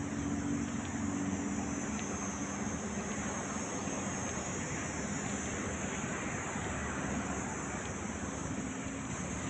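Steady outdoor background noise with a low engine hum that fades away over the first few seconds.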